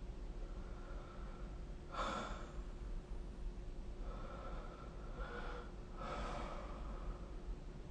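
A sleeping person breathing noisily. There are soft breaths about every two seconds, with a short, sharper one about two seconds in.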